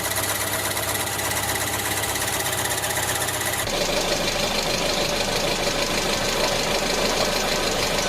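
Car engine running with a rapid, even mechanical pulse. It is cut abruptly to a different engine sound about four seconds in.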